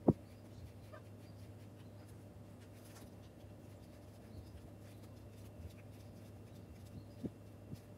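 Metal fuel-line clamps being fitted onto rubber fuel hoses: faint scraping handling noise and small clicks, with a sharp knock right at the start and two clicks near the end, over a steady low hum.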